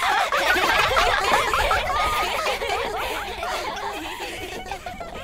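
A group of girls laughing and giggling together, many voices at once, dying down toward the end.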